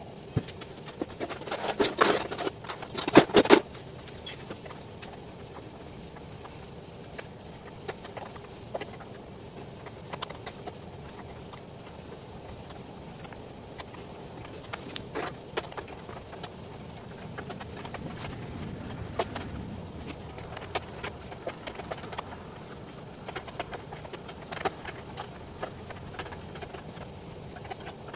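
Metal hand tools clinking, scraping and clicking against a scooter's body fasteners while the front screws are worked loose; those screws are rusted and stuck fast. A louder rattle of metal comes about two seconds in, then scattered small clinks follow.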